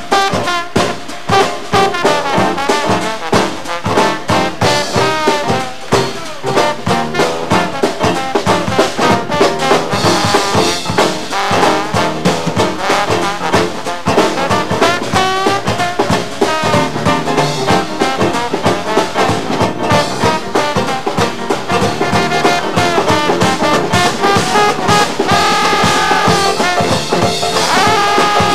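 Traditional New Orleans jazz band playing live, with a trombone out front over a steady beat from the sousaphone and drums.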